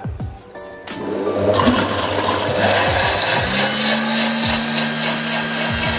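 Thermomix food processor mixing water, olive oil, salt and yeast: liquid churning and splashing in the steel bowl from about a second in, with a steady motor hum coming in about halfway through.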